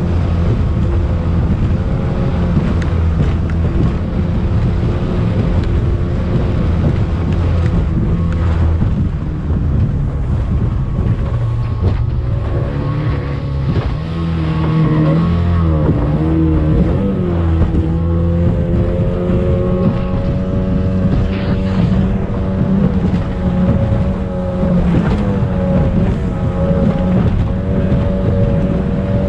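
Racing speedboat's engine running at speed, heard from on board with wind on the microphone and rushing water. The engine note wavers in pitch for a few seconds in the middle, then settles back to a steady run.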